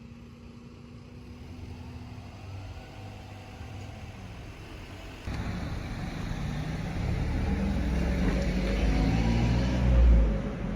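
A road vehicle's low running rumble, fainter at first, stepping up suddenly about halfway through and swelling briefly near the end.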